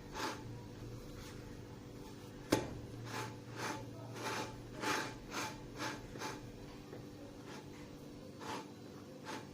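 A single sharp knock, then a run of soft rubbing strokes about two a second, with two more near the end: hands or a utensil rubbing over the cooked small matlou flatbreads, as when spreading butter on them.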